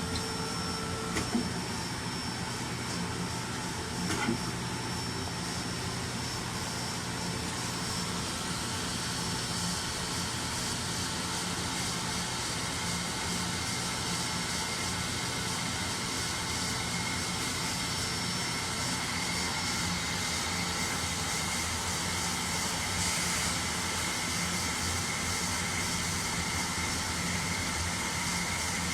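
Nakamura-Tome Super NTM3 CNC turning center running: a steady hiss and hum with several held tones, and two short clicks in the first few seconds.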